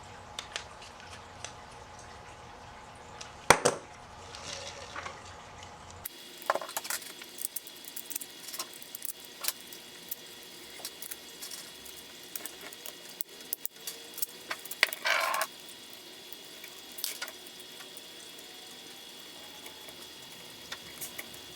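Hands handling small hardware and parts on a workbench: scattered clicks, clinks and rustles of screws, nuts and tools, with one sharp click about three and a half seconds in.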